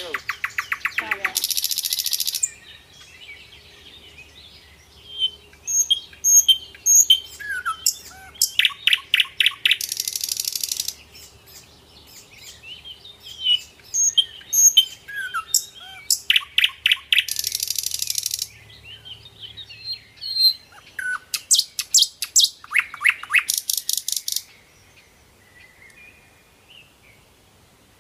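Birds chirping and calling: bursts of very fast, high trills a few seconds apart, with short whistled and chirped notes between them.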